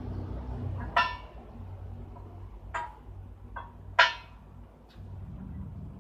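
Sharp metal-on-metal strikes, about five, each with a short ring, the loudest about four seconds in, over a low steady hum.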